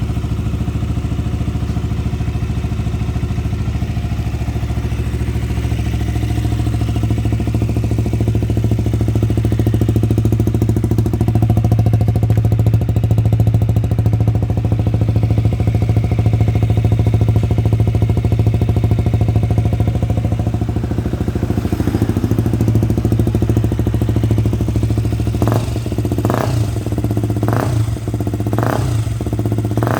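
KTM Duke 125's single-cylinder engine idling steadily while it warms up after a cold start, getting somewhat louder in the middle. Near the end it breaks into a run of short, sharp bursts about one a second.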